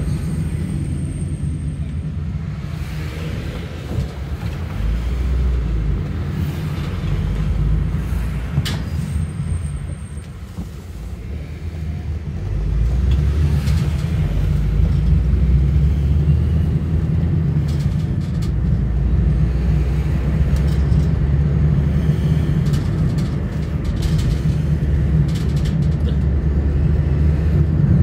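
Car cabin noise while driving: a steady low rumble of engine and tyres. It dips about ten seconds in, then grows louder from about twelve seconds on.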